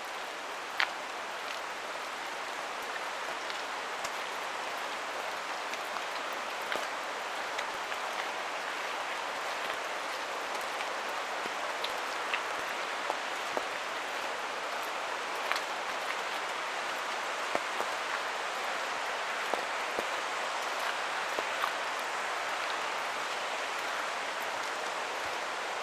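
Steady rain falling in a forest, an even hiss, with irregular sharp taps of individual drops landing close by.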